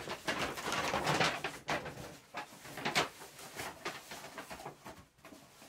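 Brown paper shopping bag crinkling and rustling as it is lifted and pulled down over a head, busiest in the first couple of seconds and dying away near the end.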